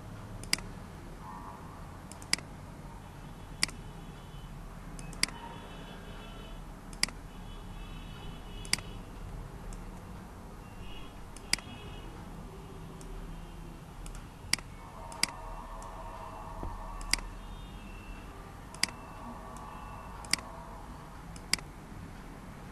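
Computer mouse clicking, about a dozen single sharp clicks spaced a second or two apart, over a low steady background hum.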